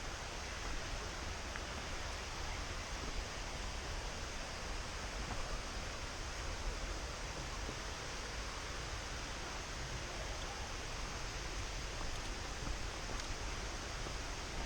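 Steady rushing of running water from a forest stream, with a low rumble under it.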